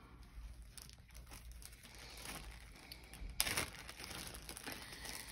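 Clear zip-top plastic bag crinkling as hands work it open, with a sharper burst of crackling about three and a half seconds in.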